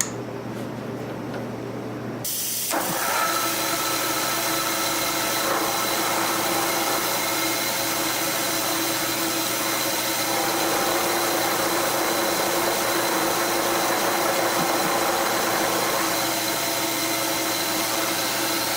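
A shop machine tool starts up suddenly about two seconds in and runs steadily, a broad hiss with a steady whine over it, while trimming the ends of a piece of metal stock.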